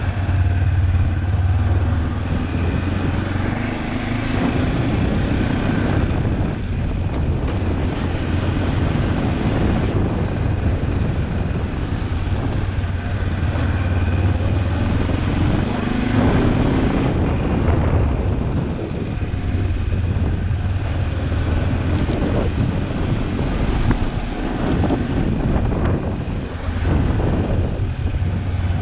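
Kawasaki KLE 400 parallel-twin motorcycle engine running under way, its note rising and falling with the throttle, with wind noise on the microphone.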